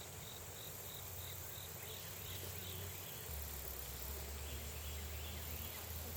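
Outdoor insect chorus: a regular series of high chirps, about three a second, near the start, with fainter chirping later over a steady high hiss. A low hum grows stronger about three seconds in.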